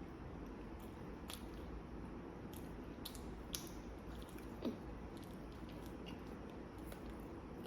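A person chewing food close to the microphone, with scattered soft wet mouth clicks and one louder smack a little past halfway.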